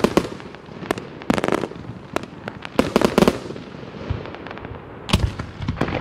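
49-shot consumer fireworks cake firing: sharp cracks and bangs of shells launching and bursting, coming in quick clusters roughly every one and a half seconds.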